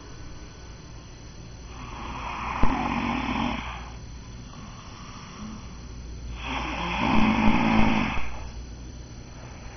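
A man snoring in his sleep: two long snores about four and a half seconds apart, each lasting around two seconds, with a short click partway through the first.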